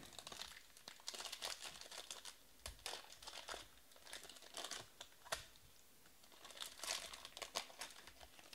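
Foil wrapper of a trading-card pack crinkling and tearing as it is pulled open by hand, in short bursts, with one sharp snap a little past halfway.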